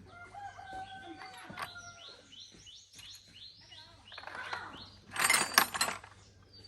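Birds chirping: thin whistled notes, then a quick run of short falling calls. About five seconds in comes a louder burst of noise lasting about a second.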